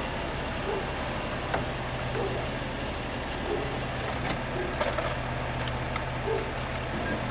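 Small metallic clicks and jingles from door latch parts being handled and fitted, a few of them about halfway through, over a steady low hum.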